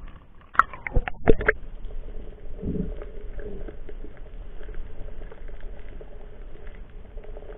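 Water slapping and splashing over an action camera at the sea surface, several sharp hits in the first second and a half, then the muffled sound of the sea heard from underwater: a low steady hum with light crackling.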